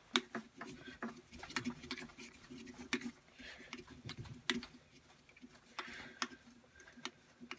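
Hands working at the lathe's milling setup close to the microphone: irregular small metallic clicks and light knocks with a little rustling, and no machine running.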